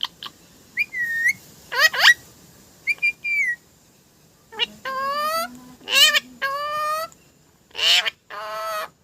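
A series of short bird-like whistled calls and chirps, some sweeping up or down in pitch, with brief gaps between them.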